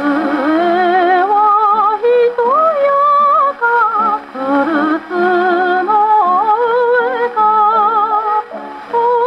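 Victrola acoustic gramophone playing a 1947 Columbia 78 rpm record of a Japanese popular song: orchestral accompaniment under a melody line that wavers with vibrato and moves in smooth phrases with short breaks between them.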